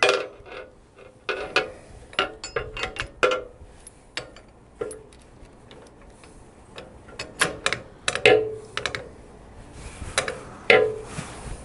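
Irregular metallic clicks and clinks of metal parts and tools as a clutch arm is fitted onto a Harley-Davidson transmission, some clinks ringing briefly.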